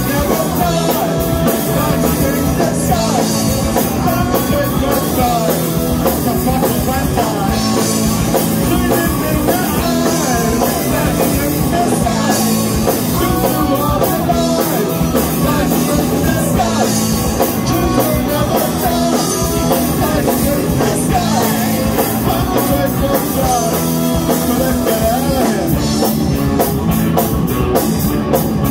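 Live punk rock band playing: two electric guitars, electric bass and a drum kit, with a man singing lead into a microphone.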